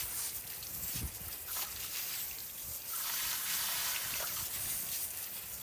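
Water spraying and running off a truck being washed, a steady hiss that grows a little stronger about halfway through.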